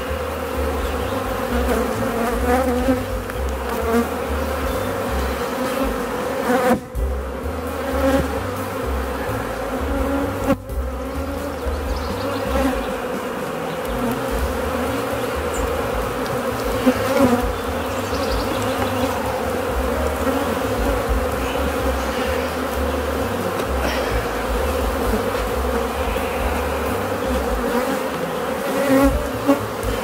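A colony of honeybees buzzing steadily around an opened hive as brood frames are lifted out, with a low rumble underneath. The hum dips briefly twice, about a third of the way in.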